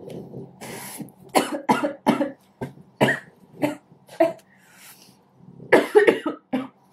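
A young woman coughing in repeated short, harsh fits, a quick run of coughs in the first half and another close cluster near the end, as if choking.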